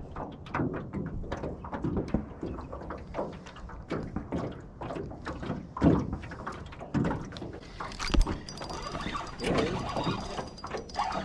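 Irregular knocks and bumps in a small flat-bottomed fishing boat, with two louder thumps about six and eight seconds in.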